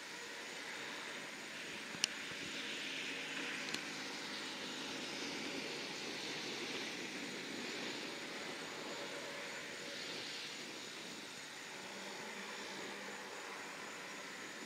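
Lockheed C-130J Hercules turboprop engines running as the aircraft taxis, a steady engine noise that builds over the first couple of seconds and eases off in the last few. A sharp click about two seconds in and a fainter one shortly after.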